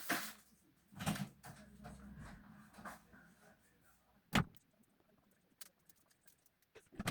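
A few scattered knocks and clicks, with a low hum for a couple of seconds after the first knock and a single sharp click about four and a half seconds in.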